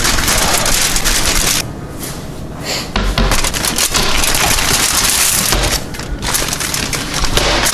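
Aluminium foil being crumpled and crimped by hand: a dense, loud crinkling and crackling, with a short lull about two seconds in.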